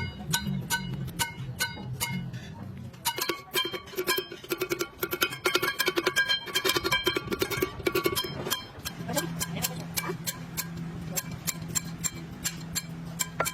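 Background music of plucked string notes in a steady rhythm, busier in the middle, over a low steady hum.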